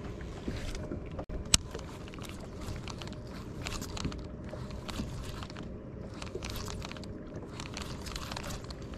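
Baitcasting reel cranked in short spells with brief pauses while retrieving a jerkbait, its gears giving a gritty crackling whir. A sharp click comes about one and a half seconds in.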